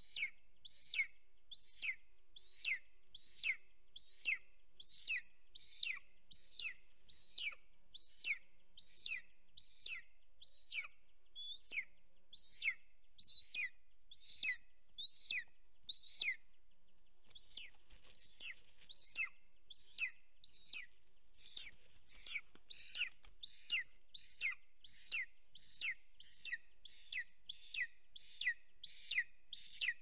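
Golden eagle chick begging: a thin, high call that slides steeply downward, repeated over and over about once a second. There is a short break about halfway through, then the calls go on slightly faster.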